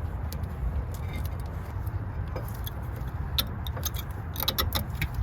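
Light metallic clicks and clinks as a new brake pad and its retaining clip are fitted into a front disc brake caliper, coming thicker about three and a half seconds in, over a steady low rumble.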